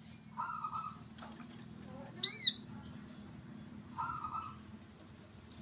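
Small bird calls during bird trapping: a short low trill about half a second in and again about four seconds in, and one loud, sharp, arched chirp a little past two seconds, over a steady low hum.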